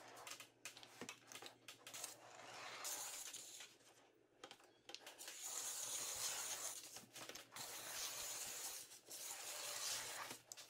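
Hand-held roller hemming tool (the Perfect Bender) rolling along the edge of a sheet-metal roofing panel to fold a 3/4 inch hem, its wheels rubbing and grinding on the metal with small clicks. It is faint and comes in passes, one about two seconds in and a longer one from about five and a half seconds to near the end.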